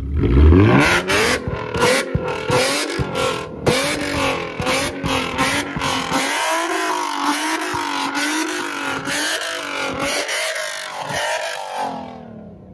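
Loud V6 Ford Mustang revved hard, its exhaust crackling and banging with rapid backfire pops as it shoots flames from both tailpipes. The engine climbs sharply in the first second, then is blipped up and down under a string of bangs, which die away near the end.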